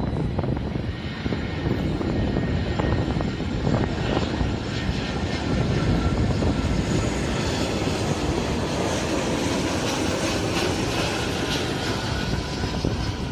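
Airliner's jet engines passing, a steady loud rumble with a hiss in the higher pitches.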